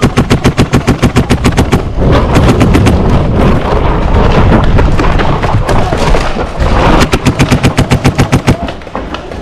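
Paintball markers firing rapid strings of about ten shots a second, with several markers shooting over one another in a dense barrage in the middle.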